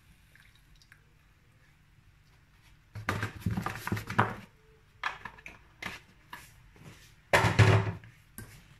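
Kitchen handling noises at a stainless steel saucepan as milk is poured into the sauce: a quiet start, then a run of short knocks and clatters from about three seconds in, the loudest near the end.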